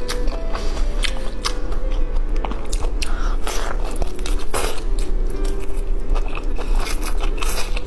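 Close-miked biting and chewing of crunchy food, with repeated sharp crunches throughout, over faint background music.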